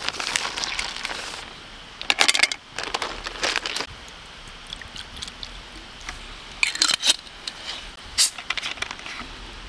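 Whisky poured from a bottle over ice cubes in a metal sierra cup, with several sharp clinks and crackles from the ice.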